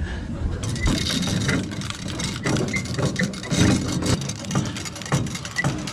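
Fishing line being wound in by hand on a hand-cranked deck-mounted drum reel, with scattered light clicks and knocks from the reel over a steady low rumble.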